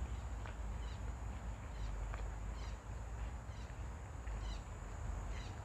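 Forest ambience: a bird giving short repeated chirping calls about once a second over a steady low rumble and a faint high insect-like hum.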